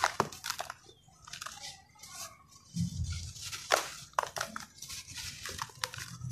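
Dry compacted sand-cement chunks crumbled between the fingers, crunching and crackling in quick sharp bursts, with grit and powder pouring and hissing into the bowl. A dull thud a little before three seconds in.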